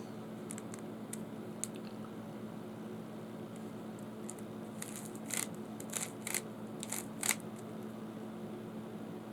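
Rubik's Cube layers being twisted by hand: scattered plastic clicks, then a cluster of louder clicking turns about five to seven and a half seconds in, over a steady low hum.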